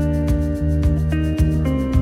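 Background music: sustained instrumental chords that change about every half second, over a steady beat.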